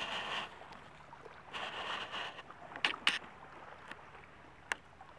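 Small waves lapping softly at a sandy shore, swelling and fading every second or two, with a few sharp clicks about three seconds in and again near the end.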